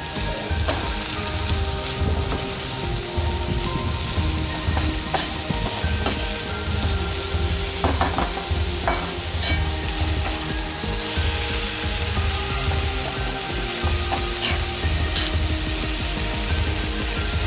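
Sliced bitter gourd and onions sizzling in oil in a kadhai, stirred with a steel ladle that scrapes and clicks against the pan now and then.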